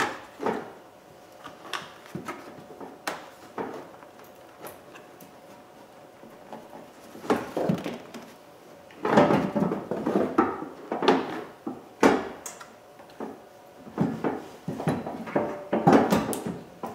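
Plastic A/C condenser fan assembly being worked loose by hand, knocking, clunking and scraping against the parts around it. The knocks are irregular, sparse at first and much busier in the second half.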